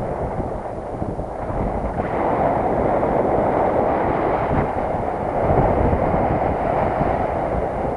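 Airflow in flight rushing over the camera microphone of a paraglider pilot: a dull, steady wind rush that swells and eases a little.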